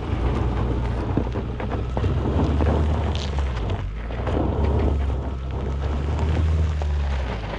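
Infiniti QX55's turbocharged four-cylinder engine running under throttle as the SUV crawls up a loose dirt slope, with tyres crunching and popping over gravel and stones. Wind buffets the microphone, and the engine drone eases off briefly about four seconds in.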